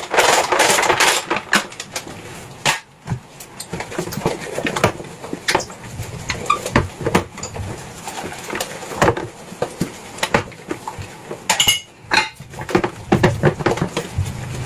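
Dishes and cutlery being handled, with irregular clinks, clatters and knocks. Near the end there is a brief ringing clink.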